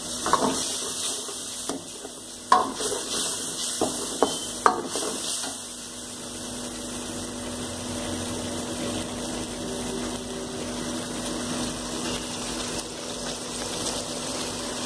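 Masala gravy with paneer sizzling in a kadai while a steel spatula stirs and scrapes the pan, with several clinks and knocks in the first half. After that the gravy sizzles and bubbles steadily, with a steady low hum underneath.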